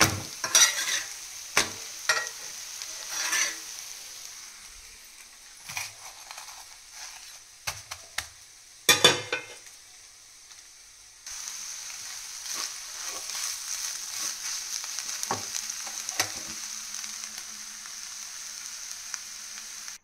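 Egg-and-greens stir-fry sizzling in a non-stick kadai, with a steady frying hiss. A wooden spatula stirs it, scraping and knocking against the pan in short clatters; the loudest comes about nine seconds in. After about eleven seconds the sizzle turns steadier and louder, with only faint knocks.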